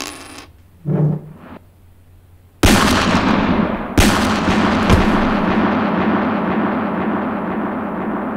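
A coin settles with a metallic ring on a wooden table, then about two and a half seconds in a handgun shot goes off, with a second shot about a second and a half later. The shots leave a long, loud ringing rumble that slowly fades.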